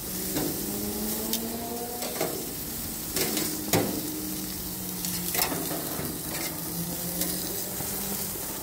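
Acorn squash and onion pieces sizzling in a stainless steel grill basket while metal tongs turn them, clicking and scraping against the basket several times. A low steady hum sits underneath.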